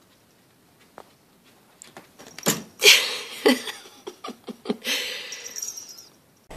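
Rustling and scrabbling with several sharp knocks as a kitten clambers down a cloth curtain and drops to a wooden floor, starting about two and a half seconds in.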